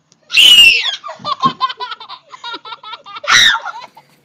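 Young child laughing: a loud, high-pitched squeal that falls in pitch, then a quick run of rhythmic 'ha-ha' laughs, and a second loud squeal near the end.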